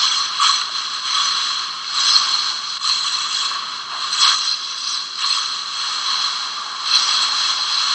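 Hurricane wind blowing hard, a steady rushing hiss that swells and eases in gusts every second or so, heard through an old camcorder microphone.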